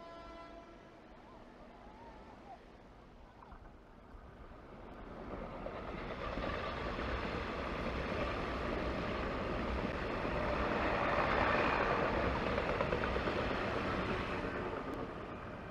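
Passenger train running past on the rails, its noise swelling over several seconds, loudest about eleven seconds in, then fading as it goes by.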